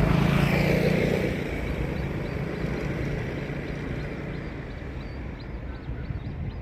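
A vehicle's engine running loud, then fading as it passes and moves away. Faint short high chirps repeat from about four seconds in.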